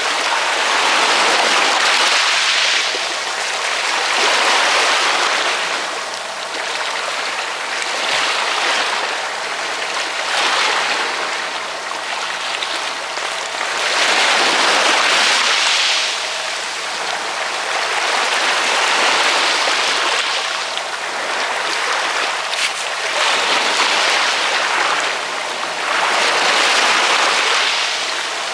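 Ocean waves washing in, a hiss of surf that swells and fades every few seconds.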